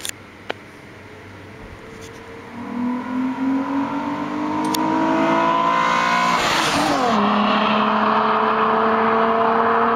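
Volkswagen Golf Mk3 2.8-litre VR6 engine accelerating, its pitch climbing for about four seconds, dropping sharply at a gear change about seven seconds in, then pulling on steadily in the next gear. Two short clicks come just before it, while it is still quiet.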